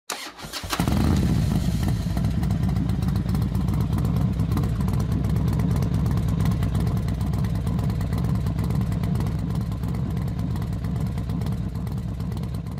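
Motorcycle engine running steadily, low-pitched, after a brief clatter at the very start; it fades a little near the end.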